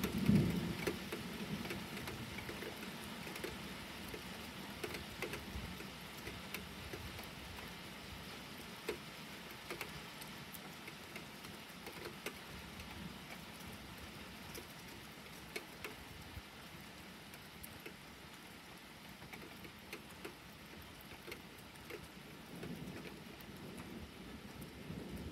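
Rain falling steadily, with scattered drops ticking close by. A low rumble of thunder dies away in the first couple of seconds, and thunder starts to rumble again near the end.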